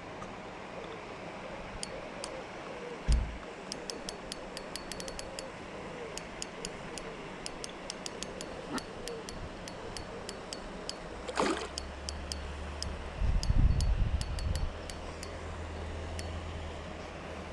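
A hooked carp splashing at the surface as it is played on a spinning rod, with many sharp, irregular ticks from the spinning reel. A loud low rumble comes about two-thirds of the way in.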